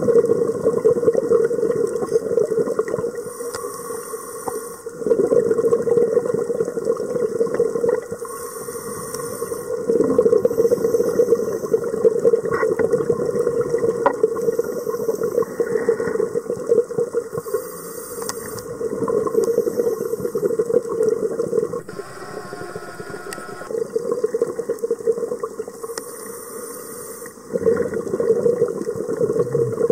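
A scuba diver breathing through a regulator underwater: hissing inhales alternate with longer rushes of exhaled bubbles, a breath every few seconds.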